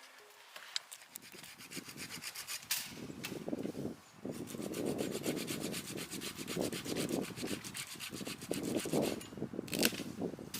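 Wood being sawn by hand, a quick run of back-and-forth scraping strokes, with a sharp click near the end.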